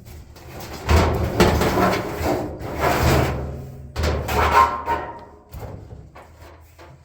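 Clattering and knocking of the dryer's sheet-metal drum and cabinet being handled, in irregular bangs and rattles.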